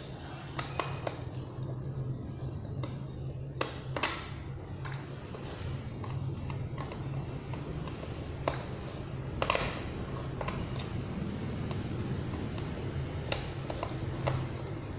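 Screwdriver clicking and scraping against a small nut and the plastic height-clamp housing of a stand fan as the nuts are fitted and tightened, in scattered irregular taps over a steady low hum.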